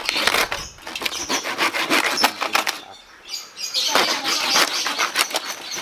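Hand saw cutting through a whole roast suckling pig's crisp skin and meat in quick back-and-forth strokes. The sawing stops briefly about three seconds in, then resumes.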